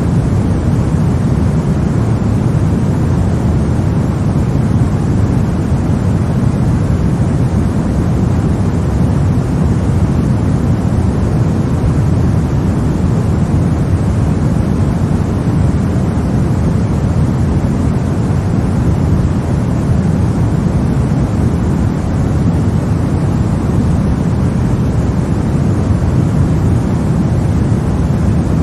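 Steady, unchanging white noise, weighted toward the low end so it sounds deep rather than hissy.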